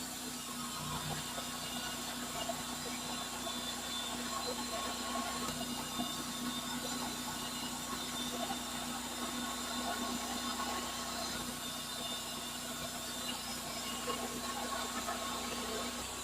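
Cook's HD3238 band sawmill running steadily with a constant hum and whine, as it saws a sycamore log.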